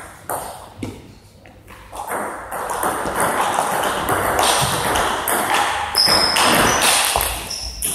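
Table tennis ball clicking off rackets and bouncing on the table during a serve and rally.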